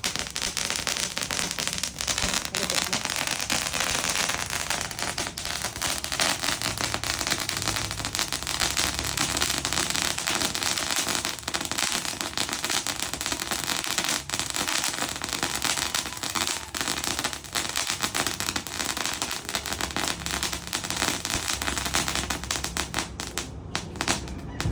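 Leegendary Fireworks 'Glow of Sunset' 90-second firecracker going off as a dense, continuous rattle of rapid small bangs. The bangs thin out and stop about a second before the end.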